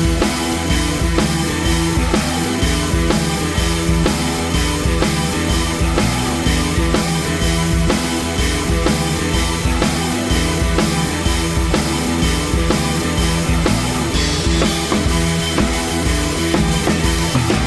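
Background music: fast rock track with a driving drum kit and steady beat.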